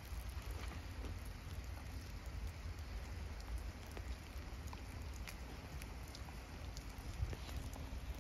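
Rain falling: a steady hiss with scattered small drop ticks, over a constant low rumble.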